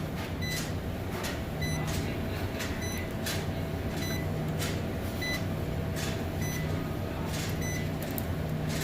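A steady low hum, with short clicks and faint beep-like tones recurring irregularly, roughly once a second.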